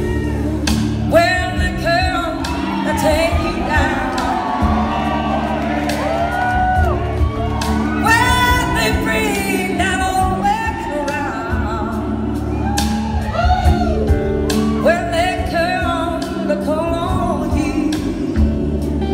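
Live blues-rock band playing with singing: a wavering melodic vocal line over electric guitar, bass and drums, with regular drum hits.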